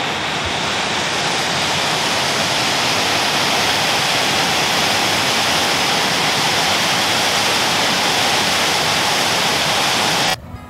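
Steady rush of a fast-flowing mountain stream, a constant even roar that cuts off suddenly near the end.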